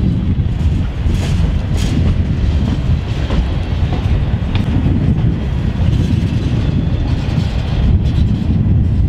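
Freight train's open-top gondola and hopper cars rolling past close by: a steady low rumble of steel wheels on the rails, with occasional clacks.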